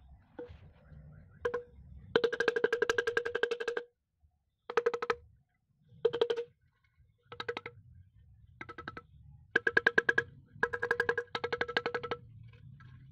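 Brush cutter's removed muffler being scraped clean of carbon: seven bouts of rapid metallic scraping strokes, the hollow metal part ringing with a steady tone as it is worked, with short pauses between bouts.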